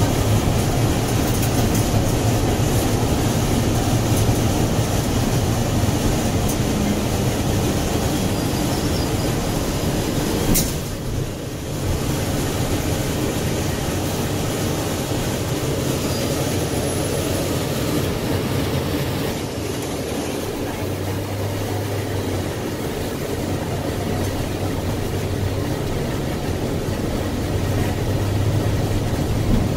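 Interior running noise of a 2007 NABI 60-BRT articulated natural-gas bus under way: steady engine and road rumble from its Cummins Westport ISL G inline-six, with a single sharp knock about ten seconds in and a steadier low engine hum toward the end.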